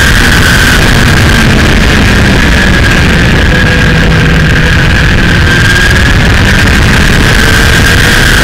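Kawasaki Ninja motorcycle engine running at a steady road speed, loud, with the pitch drifting only slightly, under a heavy rush of wind and road noise.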